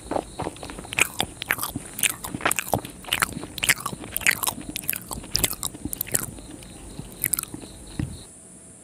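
Close-miked chewing of soft Indian sweets, with a run of quick mouth clicks and smacks that dies away shortly before the end.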